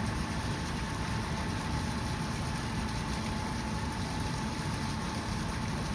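Steady background rumble and hiss of a large indoor pool hall, with a faint steady tone held throughout and no distinct events.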